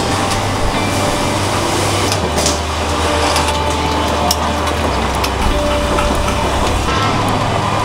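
Street-stall ambience: a steady low mechanical hum with scattered light metallic clinks as wire grill baskets of chicken are handled on a charcoal rotisserie grill. The hum shifts abruptly twice.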